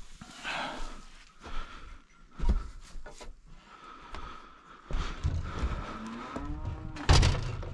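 Footsteps over snow and a wooden barn door creaking with a short rising squeal, then a loud thump near the end as the door is handled.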